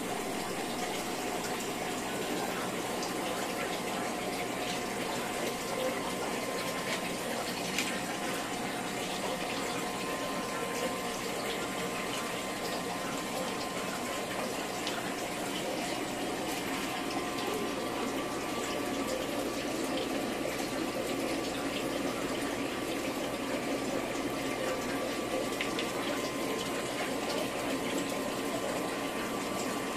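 Aquarium filter pump running steadily, with a constant rush of moving water and a faint steady hum.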